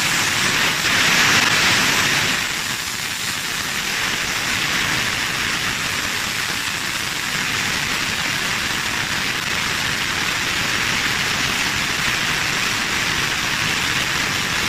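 Refrigerant gas hissing steadily as it is vented out of a refrigeration compressor through a hose, emptying the system before the compressor is removed. The hiss is loudest for the first two seconds, then settles slightly lower and stays even.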